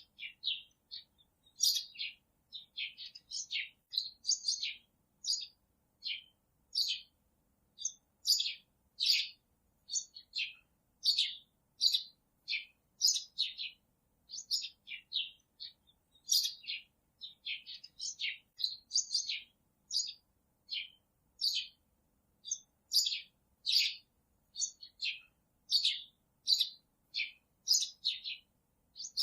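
Small bird chirping continuously: short, high, downward-sliding chirps, about two a second, with clean gaps between them.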